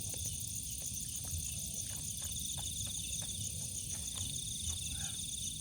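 Night chorus of crickets trilling steadily in several high-pitched layers, with a low rumble beneath and a few faint clicks scattered through.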